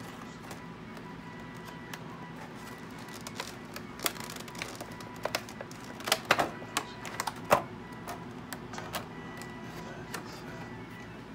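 Clear plastic packaging crinkling and clicking as hands pull card packs and trays out of a trading-card collection box, a scatter of sharp crackles that is loudest a little past the middle.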